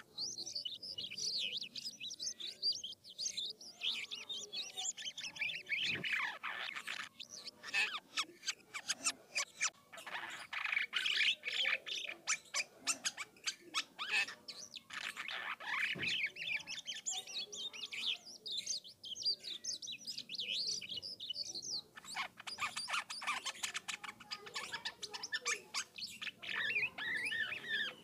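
Jalak kapas starling in full song, a long varied run of rapid chatter, trills and whistles with a couple of falling sweeps, the rolling 'ngerol' song used to draw other jalak kapas into answering.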